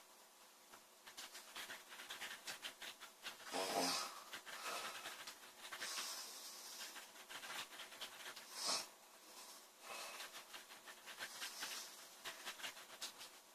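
A girl snoring in her sleep, her breaths coming every few seconds with a rattling, fluttery texture. The strongest snore comes about four seconds in, and a shorter, sharp one near nine seconds.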